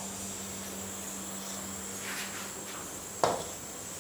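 Quiet kitchen background with a steady low hum, and a single sharp knock a little over three seconds in as a steel kitchen utensil is set down on the counter.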